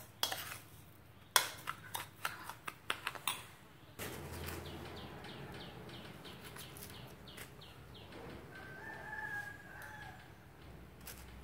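A spoon clicking and tapping against a ceramic bowl while mixing chili salt: a quick run of sharp taps in the first few seconds. Then chickens: a run of quick, high, falling cheeps, and a rooster crowing once later on.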